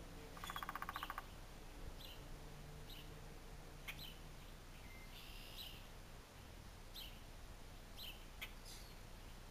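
Woodpecker drumming: one rapid burst of about ten even strikes near the start. Brief high chirps are heard about once a second.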